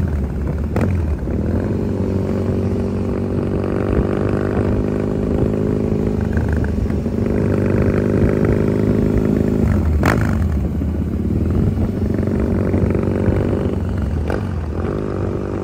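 Triumph Thruxton 900 parallel-twin engine running at low road speed, its note rising and falling gently with the throttle. A few sharp cracks cut through it, the loudest about ten seconds in.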